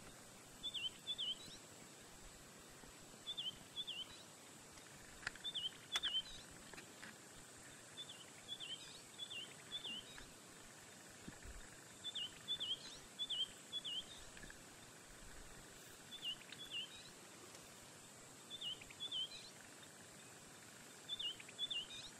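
A bird calling over and over: quick groups of two to four short high notes, each bending up and down, repeated every couple of seconds over a faint steady high-pitched whine. A couple of sharp clicks about a quarter of the way in.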